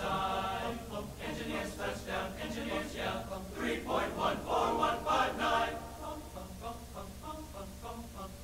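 A group of voices singing together in chorus, swelling louder about four seconds in, over a steady low hum.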